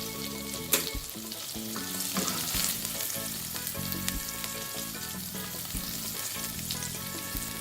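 Tofu fingers sizzling in hot oil in a pan, with a sharp utensil click against the pan about a second in as they are lifted out.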